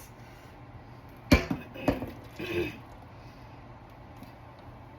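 Two sharp knocks, about half a second apart, of kitchen containers being set down or handled on a countertop, then a short soft sound.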